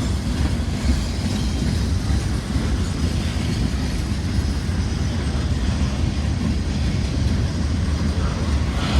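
Freight cars of a CSX manifest train rolling past: a steady rumble of wheels on rail.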